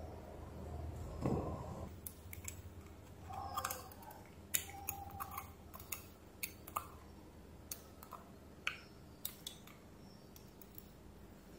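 Small metal gearbox parts and a pick clicking and clinking as a cordless drill's planetary gearbox is taken apart by hand: a soft knock about a second in, then a dozen or so scattered light ticks, a few of them ringing briefly.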